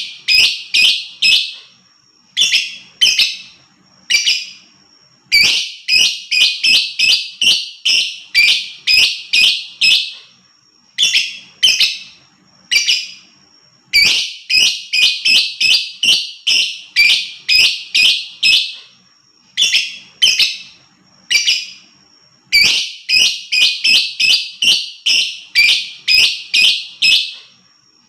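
Lovebird chattering in runs of sharp, high-pitched chirps, about three a second. Each run lasts a few seconds, with brief pauses and single chirps between runs.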